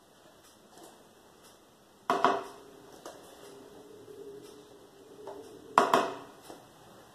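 Two loud clinks of kitchenware against a blender jar, about four seconds apart, each leaving a short ringing tail, as ingredients are added to the blender.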